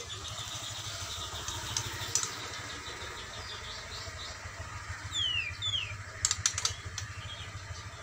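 A caged white-rumped shama gives two quick whistles sliding down in pitch about five seconds in, followed by a brief dry crackle. Behind it runs a steady low hum, like a small engine idling nearby.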